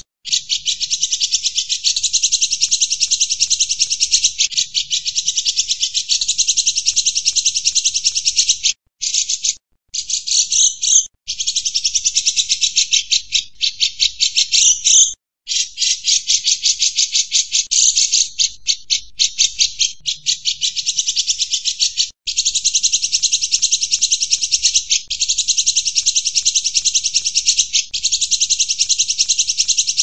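Grey-cheeked bulbul (cucak jenggot) calling in long runs of very rapid, densely repeated high notes, broken by a few short pauses.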